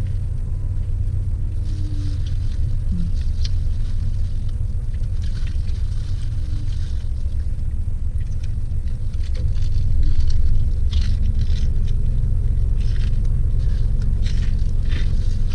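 Steady low rumble of a parked car's idling engine heard inside the cabin, with irregular crunching as crispy fried chicken skin is bitten and chewed.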